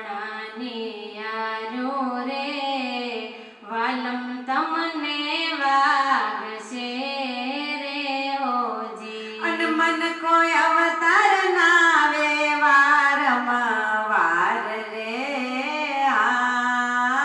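Women singing a Gujarati devotional bhajan into handheld microphones, with long held notes that slide up and down in pitch.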